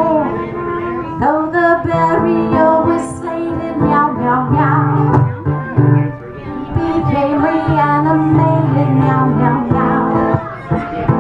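Live folk music: a woman singing over acoustic guitar and a bowed string instrument that holds long, steady low notes.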